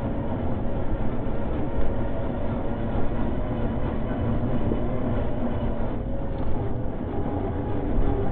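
Drivetrain of an RC scale tow truck running steadily, its electric motor and gears giving a faint whine, with rattles, squeaks and bumps from the RC vehicles crawling over a rough dirt track.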